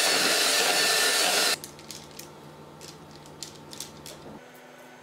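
Electric hand mixer running at speed, its beaters whipping a butter batter, cutting off suddenly about a second and a half in. After it, a few soft scrapes and light taps of a silicone spatula spreading thick batter.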